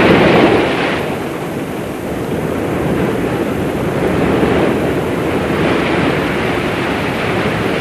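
Rough sea waves churning and breaking, a steady rushing noise that is a little louder in the first second.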